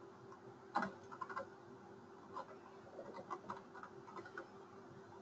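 Faint, irregular keystrokes on a computer keyboard as a file name is typed, over a steady hum.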